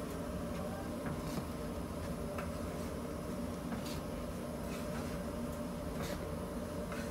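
A few faint, light clicks of metal tongs against baked buns and the wooden tray, over a steady low machine hum.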